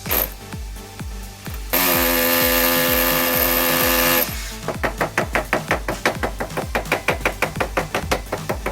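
Background music with a steady beat. About two seconds in, a loud steady mechanical whine with a hiss runs for about two and a half seconds and then stops suddenly, like a power tool running. After it comes a quick regular ticking, about four ticks a second.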